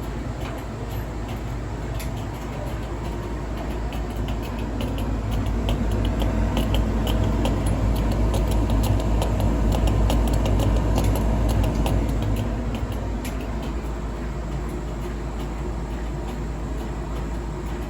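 A new Hotpoint appliance running with a steady low hum and irregular clicking and scraping. It grows louder for several seconds in the middle, when the clicks come thickest, then settles back. The owner takes the noise for a fault.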